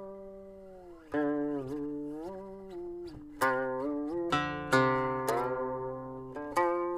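Guqin solo: single plucked notes that ring and fade, with the pitch sliding up and down after each pluck, and a quick run of several notes a little past the middle.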